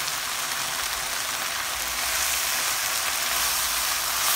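Chicken strips and mushrooms sizzling in a hot non-stick pan over a high flame: a steady hiss that gets a little louder about two seconds in.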